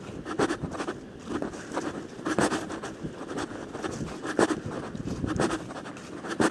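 Footsteps of hikers walking on a trail, about two steps a second in an uneven rhythm.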